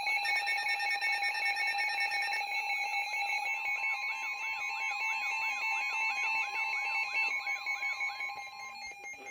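Several weather radio receivers sounding their alert alarms at once: overlapping steady tones, rapid pulsed beeping and a repeating rising-and-falling warble about twice a second. Another steady tone joins about three and a half seconds in, and most of the alarms die away near the end, ahead of the broadcast flash flood warning.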